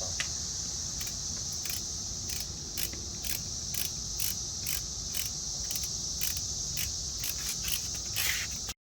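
Crickets chirring steadily in a high, even drone, with a string of short, sharp clicks every few tenths of a second over it. The sound cuts off abruptly near the end.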